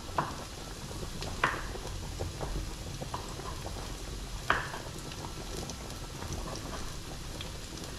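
Knife cutting a fresh tomato on a chopping board, with a few sharp knocks of the blade on the board. Underneath, a low steady sizzle and bubbling from onions sweating in a pan and a pot of spaghetti boiling.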